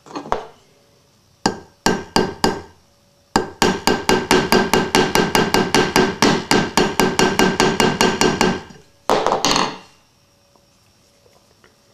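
Small ball peen hammer tapping the end of a slip joint pocket knife's pivot pin, metal on metal, with the knife resting on the head of a claw hammer as an anvil: a few separate taps, then a fast, even run of light taps, about five a second for some five seconds, then a last couple of taps, each with a short ring. This is peening the pin to tighten the pivot and take up blade play.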